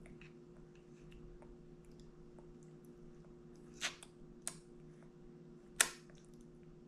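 A baby chewing a mouthful of durian, with three sharp wet mouth smacks in the second half, the last the loudest, over a steady low room hum.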